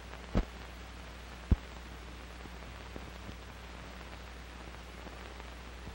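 Steady hiss and low hum of an old film soundtrack, with two short clicks in the first second and a half.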